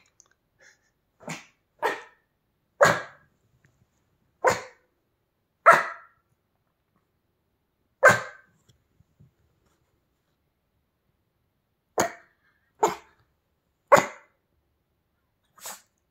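A Pomeranian barking in about ten short single barks, spaced unevenly with pauses of up to four seconds between them.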